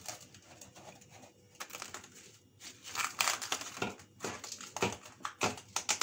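Plastic cling film being pulled and stretched over a glass dish, crinkling and crackling, louder and more busy from about halfway through.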